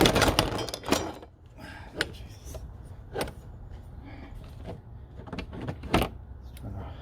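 Metal parts and hand tools being handled: a scraping rustle in the first second, then a few separate knocks and clinks spread across the next several seconds.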